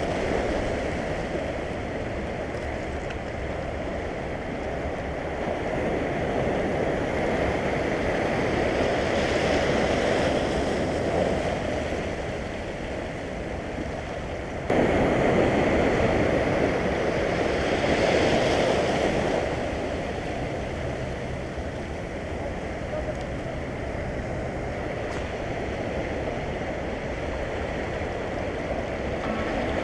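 Sea surf washing over rocky shoreline, a steady rush that swells twice; the second swell comes in suddenly about halfway through.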